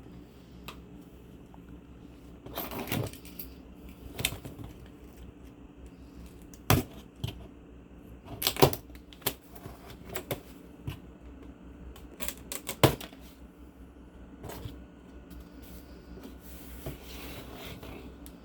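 Handling noises from unpacking a PC case: irregular sharp clicks and knocks with a couple of brief scrapes. The loudest knocks come about a third and two-thirds of the way through.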